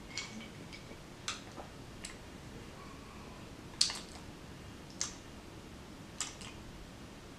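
About six faint, sharp clicks spaced out over a quiet room, the loudest nearly four seconds in.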